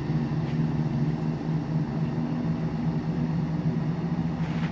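Class 170 Turbostar diesel multiple unit's underfloor diesel engines running with a steady, low, even drone as the train pulls away along the platform.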